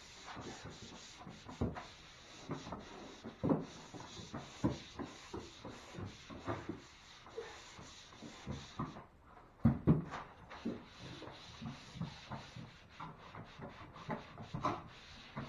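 150-grit sandpaper rubbing over dried joint compound on a drywall patch, hand-sanding in short, irregular strokes, with a brief pause about nine seconds in.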